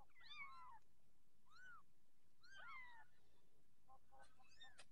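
Very young kittens mewing: several faint, thin, high mews that rise and fall in pitch, a few of them overlapping as more than one kitten calls.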